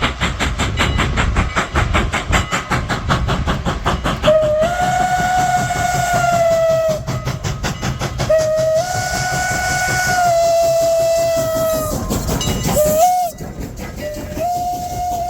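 Steam locomotive working hard, its exhaust chuffing about five times a second. From about four seconds in, its Pennsylvania Railroad 'Banshee' steam whistle sounds four blasts, long, long, short, long: the grade-crossing signal.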